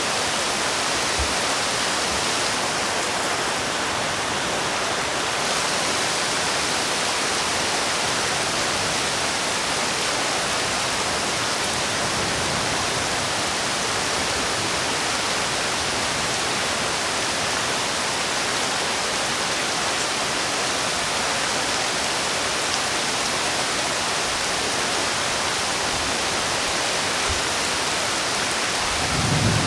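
Steady heavy rainfall, a dense even hiss of rain with no let-up. A brief low rumble comes in at the very end.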